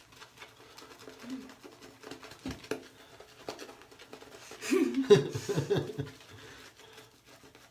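Shaving brush working soap lather in small circles on skin, giving a soft wet swishing and patter. About five seconds in comes a short, louder burst of voice, like laughter.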